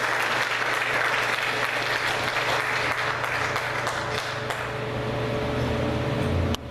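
Congregation applauding, the clapping thinning out over the seconds, with a low steady tone underneath; the sound cuts off abruptly near the end.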